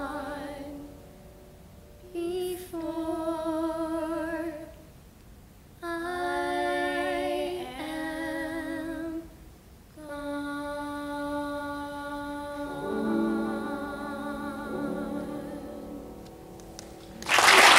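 Two women's voices singing long, wordless held notes in close harmony with vibrato, in three phrases with short pauses between them. The last note dies away, and a loud burst of applause breaks out at the very end.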